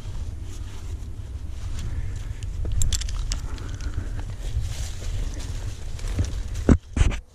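Wind rumbling on a body-worn camera's microphone, with scattered rustles and small clicks of rope and climbing hardware as the climber sets off up the rope. Two heavy thumps sound near the end.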